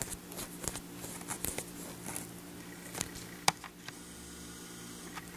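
Faint scattered taps and clicks of small objects being handled, with one sharper click about three and a half seconds in, over a steady low electrical hum.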